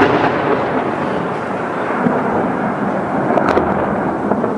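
Long rolling rumble after a heavy shell explosion, slowly fading, with a sharp click about three and a half seconds in.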